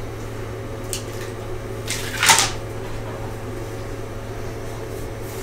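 A steady low hum, a short click about a second in, and a brief scraping rustle a little after two seconds in as a spring-steel flex plate with a textured PEI surface is lifted off the 3D printer's magnetic base.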